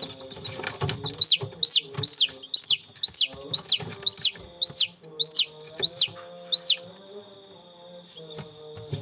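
Newly hatched domestic chick in an egg incubator peeping loudly and repeatedly, about a dozen high chirps at roughly two a second, each rising and then falling in pitch, stopping about two seconds before the end.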